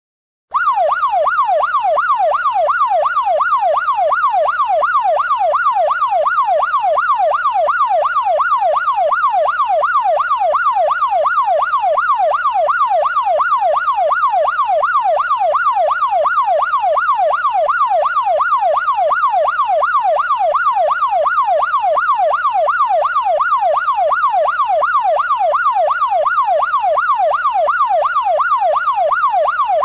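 Electronic police siren in a fast yelp, its pitch sweeping up and down several times a second without a break. It drops out for a moment right at the start, then carries on.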